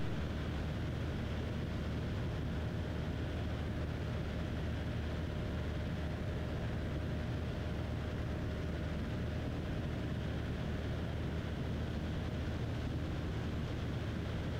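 Cessna 172's piston engine and propeller running at a steady power setting in flight, heard from inside the cabin as an even, unchanging drone.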